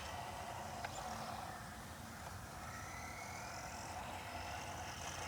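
Faint whine of a small electric RC car's motor, its pitch slowly rising and falling as the car drives.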